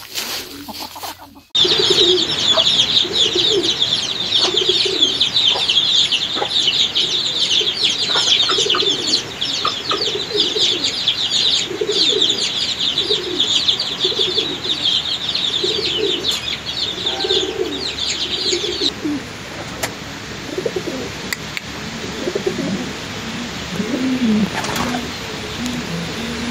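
A brood of chicks peeping rapidly and continuously, with a hen's repeated low clucks underneath. About two-thirds of the way through the peeping stops suddenly, and domestic pigeons coo in low repeated notes.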